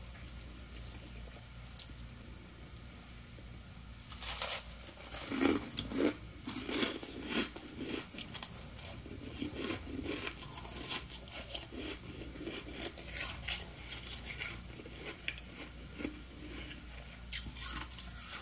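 Biting and chewing chunks of soft freezer frost close to the microphone: irregular crunches begin about four seconds in and keep coming, loudest in the first few seconds.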